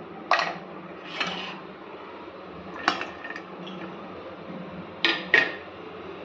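Stainless steel kitchenware clinking and knocking against a steel mixing bowl as ingredients are tipped in: about five sharp clinks, the last two close together near the end.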